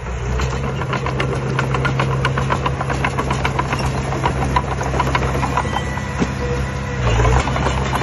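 Small Komatsu crawler bulldozer's diesel engine running steadily, with a quick, continuous clicking clatter through it. About seven seconds in the engine briefly gets louder.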